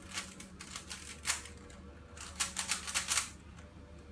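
A plastic twisty puzzle being turned quickly by hand: two flurries of rapid clicking, the second denser and louder, over a faint steady hum.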